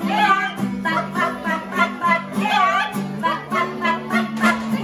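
Acoustic guitar strummed in a steady rhythm, with a voice singing along.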